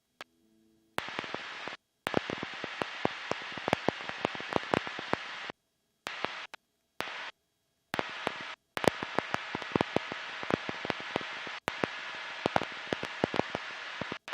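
Crackling static: a steady hiss full of sharp clicks and pops that cuts in and out abruptly several times, with dead silence between the stretches.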